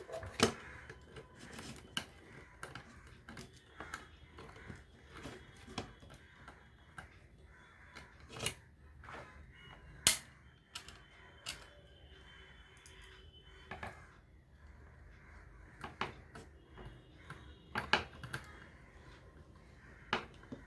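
Irregular clicks, taps and knocks of small parts and hand tools being handled while a socket is fitted into a Bluetooth USB player's case, with a few louder knocks about half a second in, about ten seconds in and near eighteen seconds.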